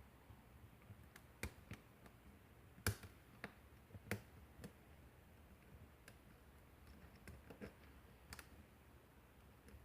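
Irregular faint clicks and taps of a lock pick and tension wrench working the pins of a pin-tumbler lock cylinder, with a few sharper clicks around three to four seconds in.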